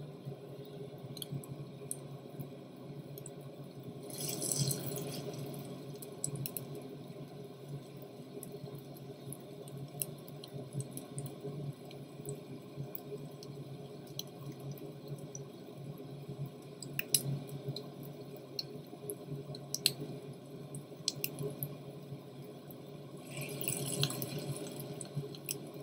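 Raw minced-meat kebab patties shallow-frying in oil in a pan: a steady sizzle with scattered small pops. The sizzle swells louder about four seconds in and again near the end, as fresh raw patties go into the hot oil.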